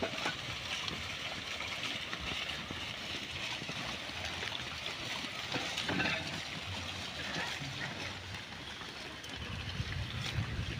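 Steady outdoor background noise with an even hiss and no clear single source, with a few faint short sounds about six seconds in.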